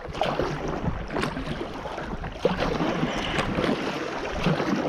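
Water splashing and rippling around a kayak being paddled down a river, with irregular small splashes from the paddle.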